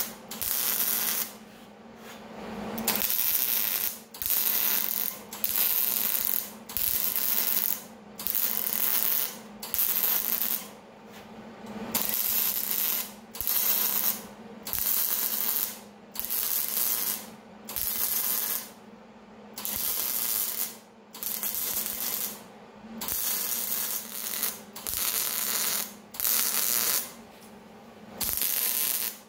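Wire-feed (MIG) welder laying short stitch welds along the edges of a steel frame holding an expanded-metal mesh grate: bursts of arc about a second long, one every one and a half to two seconds, with short pauses between and a steady low hum underneath.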